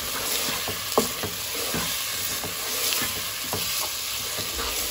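Chopped tomatoes and fried onion with ginger-garlic paste sizzling in oil in a non-stick pan while a spatula stirs them, with scattered knocks and scrapes of the spatula against the pan, the sharpest about a second in.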